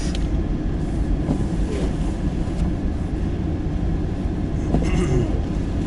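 Steady low rumble and rattle inside the cab of a Ford F-250 Super Duty with a truck camper, crawling while it plows through deep snow.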